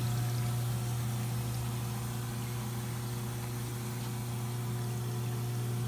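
Hot-water parts washer running with a steady low hum from its pump, holding one even pitch throughout.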